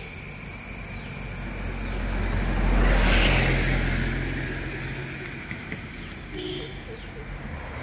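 A car driving along a road: steady engine and tyre noise, heard from the car. About three seconds in, a whoosh swells up and fades away, as a vehicle goes past.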